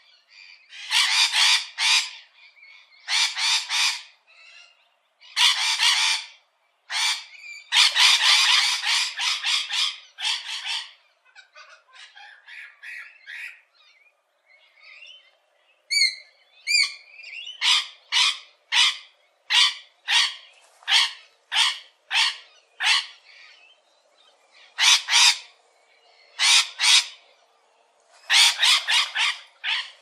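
Rose-ringed parakeets giving harsh, shrill screeching calls in repeated bursts. About halfway there is a quieter stretch and a few clear whistled notes, followed by a quick run of short screeches about two a second.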